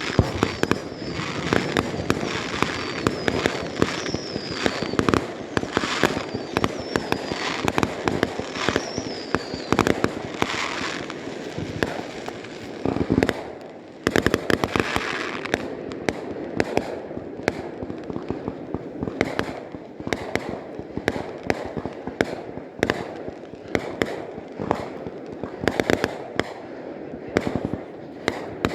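Fireworks display: a dense, continuous barrage of bangs and crackling shells, with a few high falling whistles in the first ten seconds.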